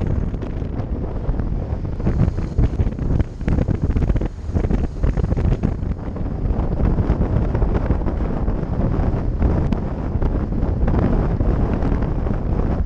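Wind buffeting the microphone of a camera on a moving motorcycle, with the bike's engine and road noise underneath, all mixed into a steady rushing noise that wavers in level.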